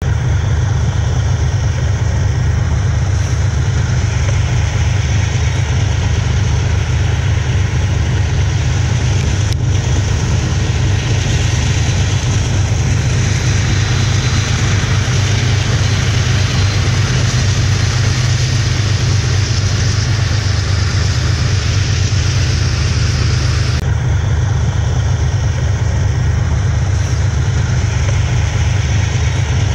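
BNSF diesel-electric freight locomotives running as the train passes, a steady low engine drone under a hiss of wheel and rail noise. The hiss grows brighter about a third of the way in and drops off sharply near the end.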